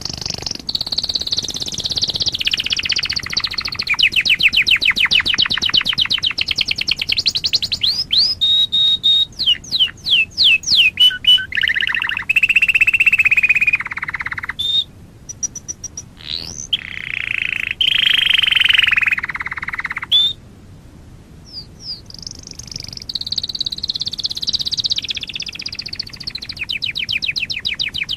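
Domestic canary singing: long trilled phrases of rapidly repeated notes, some sweeping up and down in pitch, broken by two short pauses about halfway through and again about three quarters through.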